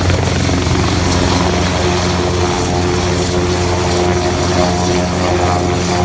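Super Puma rescue helicopter's main rotor and turbines running at lift-off power as it rises off the helipad: a loud, steady rotor beat with a constant high turbine whine.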